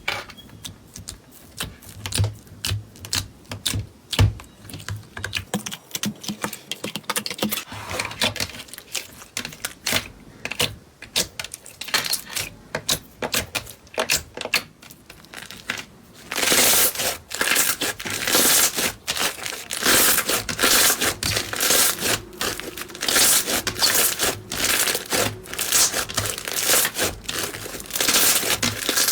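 Slime being squeezed and poked by hand, making rapid, irregular clicks and crackles that grow denser and louder about halfway through.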